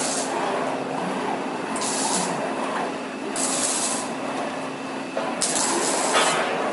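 A two-seat 5D cinema motion system running a ride: a steady rumbling with a faint low hum, broken by three short bursts of hissing, one every one and a half to two seconds.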